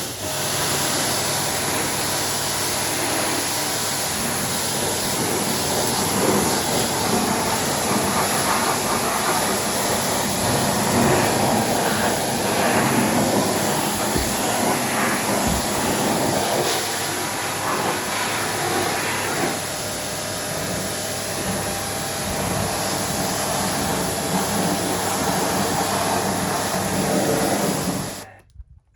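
Gorenje PS 060 A Sidex washing machine running: a loud, steady mechanical noise with a low hum underneath. It starts suddenly and cuts off suddenly about a second before the end.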